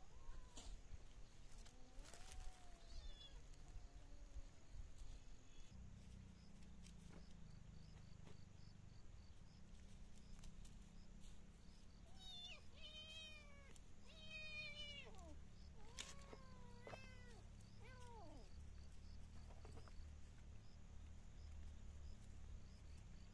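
A cat meowing faintly, a string of short calls that bend up and down in pitch, a few early on and a cluster of them about halfway through.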